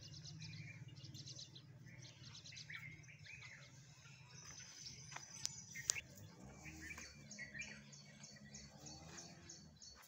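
Small birds chirping and twittering, with a quick run of evenly repeated high notes near the end. A low hum runs underneath, and two sharp clicks come a little past halfway.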